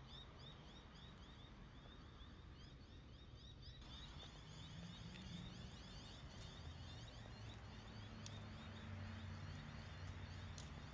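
Faint outdoor ambience: a low background rumble with a rapid, regular high-pitched chirping, about four or five chirps a second, filling out a little after about four seconds.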